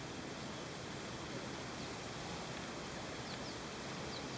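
Steady outdoor hiss of open air and light wind on a chairlift ride, with a few faint short high chirps in the second half.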